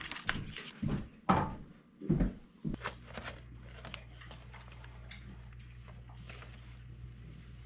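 A few sharp rustles and taps of a plastic laminating sheet and paper being handled, then a Purple Cows thermal laminator running with a steady low hum as the printed decal feeds through its rollers.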